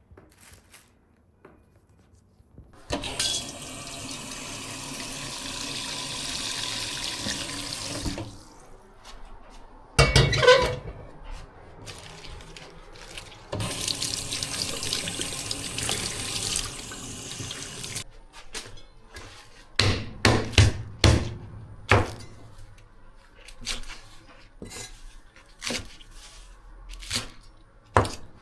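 Kitchen tap running into a sink, twice for about five seconds each, with sharp knocks and clatter of utensils and dishes in between and afterwards.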